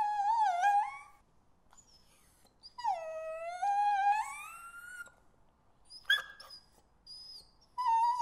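Puppies whimpering. A high whine lasts about a second, then a longer whine dips and rises again from about three to five seconds in, then a few short yelps come near the end.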